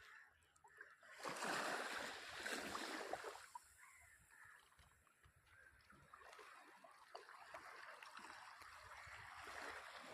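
Water splashing and sloshing, loudest for about two seconds near the start, then a softer, steady wash of water.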